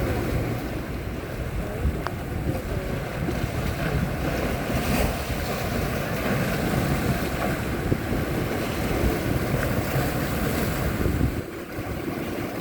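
Sea waves and wind, with wind buffeting the microphone: a steady rushing noise with heavy low rumble, dipping briefly near the end.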